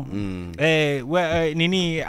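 A man's voice in a long, drawn-out sung line, holding and sliding its notes with almost no breaks.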